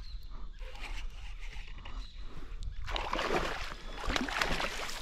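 Hooked traíra thrashing and splashing at the water surface as it is fought on a bent rod, the splashing loudest about three seconds in.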